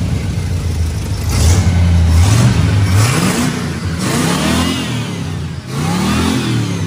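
Chevy 350 small-block V8 in a Mule utility vehicle running through custom exhaust stacks. After about two seconds of steady running it is revved three times, the pitch rising and falling with each blip of the throttle.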